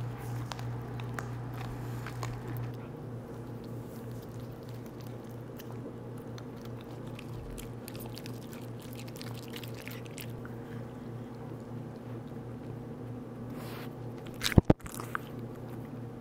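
Merle Pomeranian gnawing a hard chew treat: many small crisp crunches and clicks, thinning out after about ten seconds. Near the end comes one sharp knock, the loudest sound.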